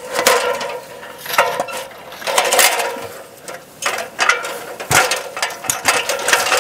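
Aluminium extension ladder fitted with a stabilizer rattling and clanking as it is walked upright and set against a metal building wall: a series of metallic clanks, some ringing briefly, about every second.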